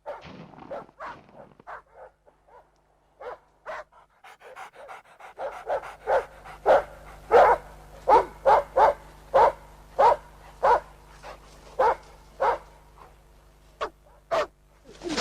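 Hunting dogs barking: a few scattered, fainter barks at first, then from about five seconds in a steady run of louder barks, roughly one or two a second.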